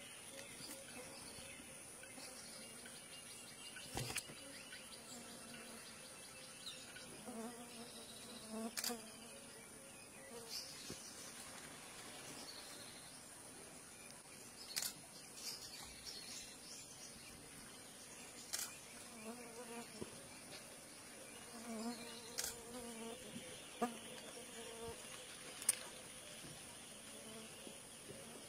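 Steady high-pitched drone of insects in a forest clearing, with sharp clicks every few seconds and a few faint pitched calls now and then.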